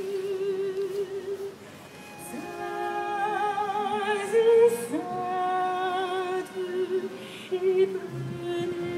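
A woman singing slow, long-held notes with a wide vibrato, with a short break about two seconds in.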